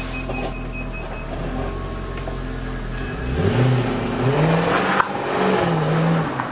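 Audi A8's 3.7 V8 idling steadily, then revved in three short blips about halfway through, each rise in pitch falling back. A quick high beeping sounds in the first second or so.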